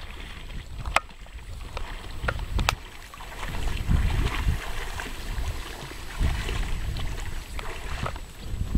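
Wind buffeting the microphone over lake water sounds, with a few sharp clicks, about one second and nearly three seconds in.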